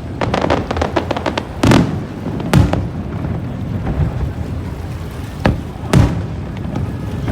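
Fireworks going off: a fast run of crackling pops in the first second or so, then four loud separate bangs.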